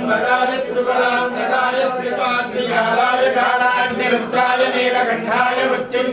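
A group of male voices chanting Hindu mantras together in a continuous, steady recitation.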